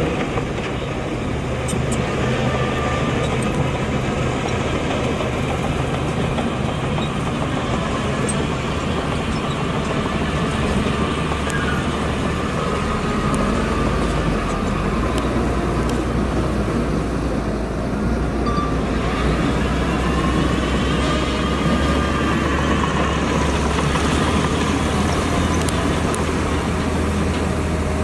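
Bulldozer's diesel engine running steadily as it works dirt. A whine wavers up and down in pitch in the second half.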